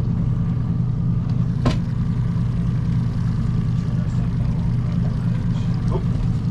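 Boat's outboard motor running steadily at low trolling speed, with an even low hum, and one short knock about two seconds in.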